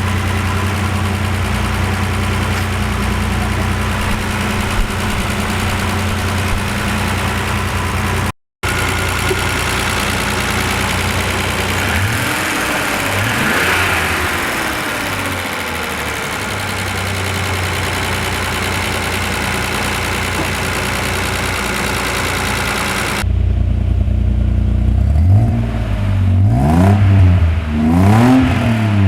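BMW 7 Series engine running steadily, then revved up and down several times near the end. The engine has a noisy timing chain, which the owners put down to a slack chain with its tensioner all the way out.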